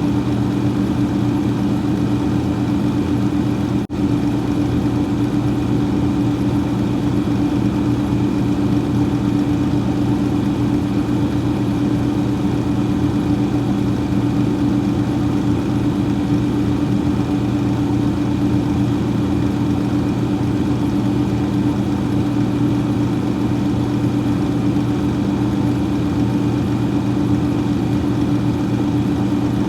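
Freezer fan running steadily: a constant hum with a few steady low tones over an even whirring rush, with one brief dropout about four seconds in.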